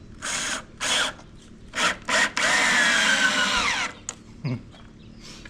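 Power drill run in four short bursts, then held for about a second and a half before its whine falls in pitch as the motor spins down.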